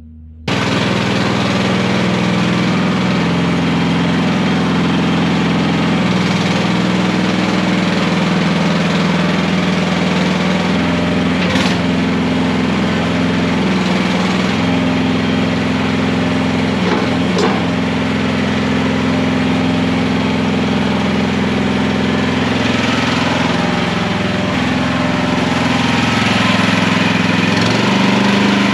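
Mini skid steer's engine running steadily at a fairly even speed, with two short clanks partway through.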